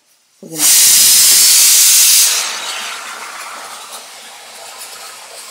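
Pressure cooker whistle going off: a sudden loud hiss of escaping steam about half a second in, loudest for nearly two seconds, then fading to a weaker steady hiss. It is the cooker whistling as the potatoes cook under pressure.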